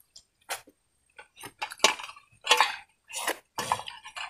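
Clinks and scrapes of stainless steel plates and a small steel bowl as people eat rice pudding by hand: a string of short, separate clatters, the loudest about two seconds in.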